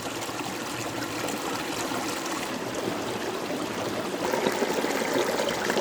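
Running water flowing steadily, like a stream, growing a little louder about four seconds in.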